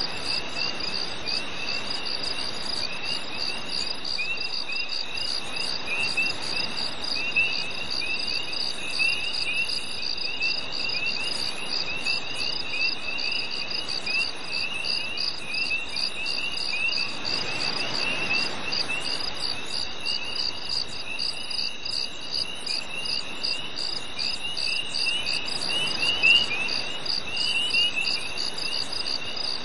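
Crickets chirping in a summer night chorus: one high, evenly pulsing chirp over a denser, irregular chirping just below it, with a soft rushing hiss underneath that swells briefly about halfway through.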